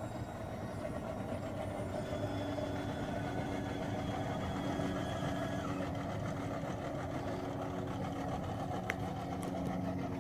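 An engine running steadily at an even idle, with one sharp click about nine seconds in.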